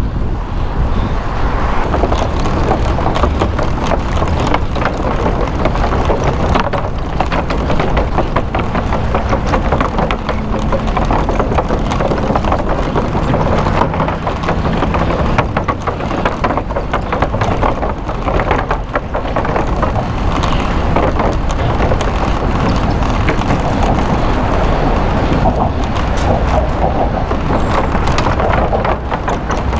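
City traffic noise heard from a moving bicycle, with wind buffeting the microphone of a helmet-mounted GoPro: a steady, loud rumble broken by many short knocks.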